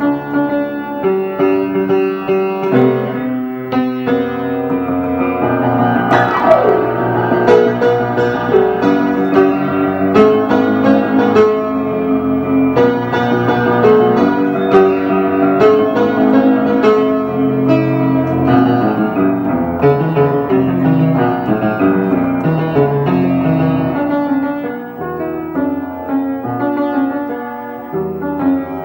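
Instrumental music on piano, a melody over bass notes and chords.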